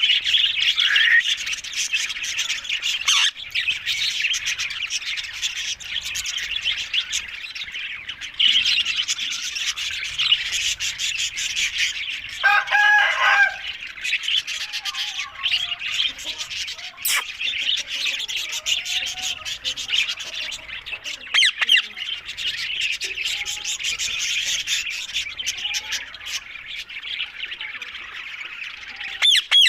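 Green ringneck parrots (rose-ringed parakeets) chattering and chirping in a dense, continuous stream of high calls, with one short, harsher call about halfway through.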